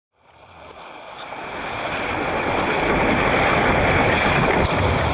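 Rushing water, fading in from silence over the first two seconds and then steady.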